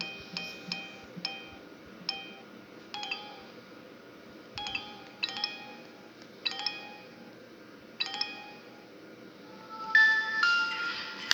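A Samsung U900 Soul mobile phone playing a ringtone through its small loudspeaker: a melody of bell-like chiming notes, each struck sharply and ringing briefly, coming in short groups. Near the end a louder, noisier passage with a few held tones.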